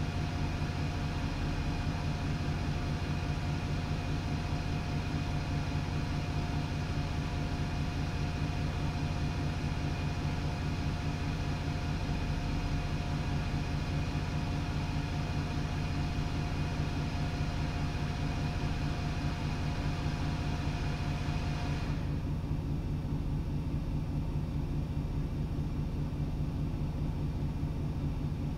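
Steady low hum of an idling vehicle engine, with a thin higher whine that stops about 22 seconds in.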